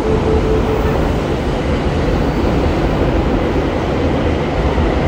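Steady hum and rumble from a stationary Odakyu 30000 series EXE train, its onboard equipment running while it stands at the platform. A steady tone stops about a second in.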